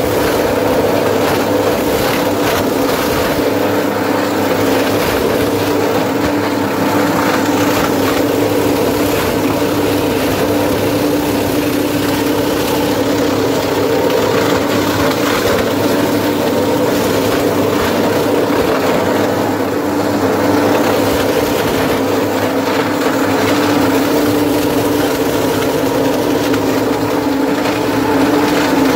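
Homemade plastic shredder running steadily, a constant loud machine hum with a droning tone.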